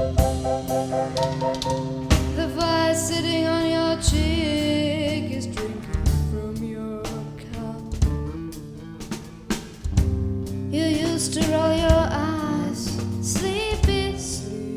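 A band playing a song: drum kit with snare and bass drum under sustained pitched instrumental lines. It dips quieter for a few seconds past the middle, then comes back up.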